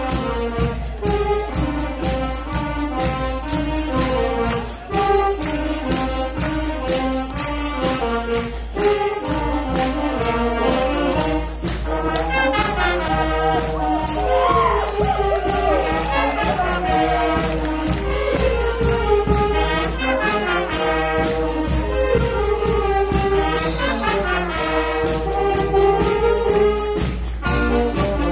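A youth wind band of saxophones, trumpets and trombones playing a tune together over a steady percussion beat.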